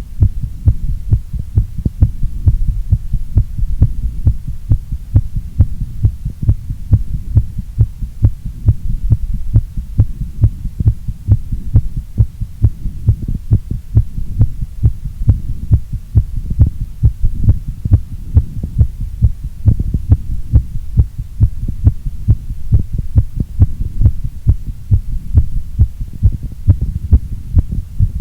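Human heartbeat heard close up, beating fast and regularly at a little over two beats a second over a steady low hum. The rate is raised by exercise.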